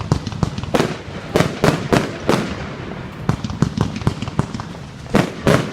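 Fireworks going off: a rapid, irregular series of sharp bangs and cracks, several a second, some with a short echoing tail.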